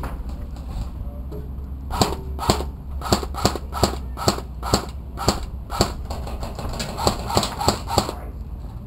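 Airsoft gun firing about a dozen single shots, sharp snapping clicks roughly two a second. The shots start about two seconds in, pause briefly, then come as a quicker run of four near the end.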